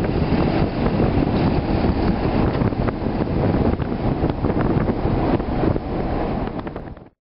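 Road and wind noise from a moving car, with wind gusting on the microphone. It cuts off quickly about seven seconds in.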